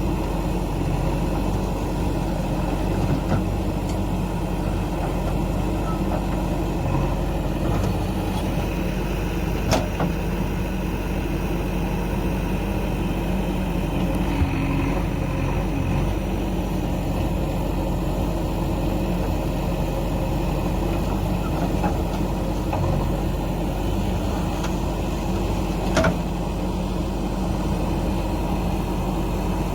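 Heavy-machinery diesel engine running steadily, with two sharp knocks, one about ten seconds in and one near the end.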